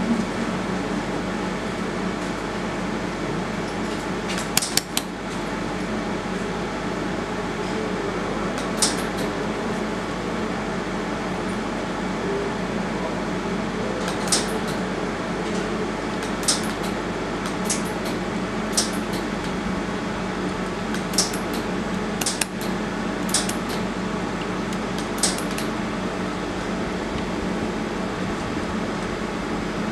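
Laser welding machine humming steadily from its fan, with about ten sharp, irregularly spaced ticks as single laser pulses fire on a small metal part, coming more often in the second half.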